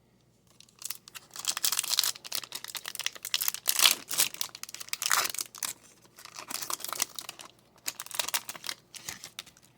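Close crinkling and rustling of plastic being handled, a dense run of irregular crackles starting about a second in and easing off near the end.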